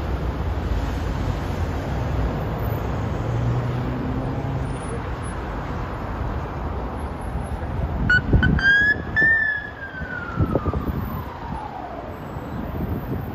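Steady noise of dense city road traffic. About eight seconds in, a siren gives a few short blips, then one wail that rises slightly and falls away over about three seconds.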